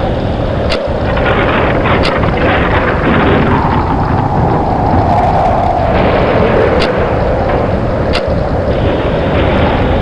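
Tornado wind: a loud, constant rush with a deep rumble underneath and a howling tone that drifts slowly up and down in pitch. A few brief sharp clicks stand out, about four in all.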